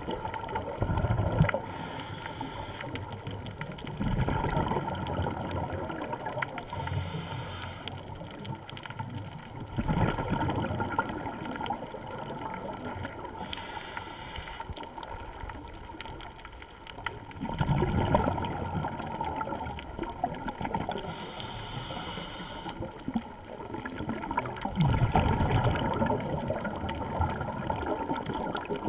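Scuba diver breathing through a regulator underwater. A hiss on each inhalation alternates with a louder bubbling of exhaled air, in a slow rhythm of four or five breaths.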